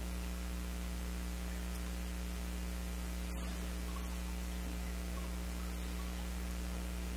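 Steady electrical mains hum under a constant hiss, with no other sound standing out.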